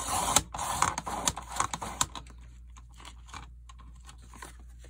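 Craft knife cutting chipboard: a loud scrape in the first half-second, then short scratchy strokes and clicks for about two seconds, trailing off into faint ticks.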